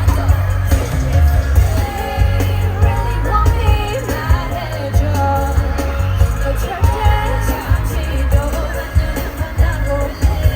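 Live K-pop vocals sung over a loud, bass-heavy backing track through a concert PA system.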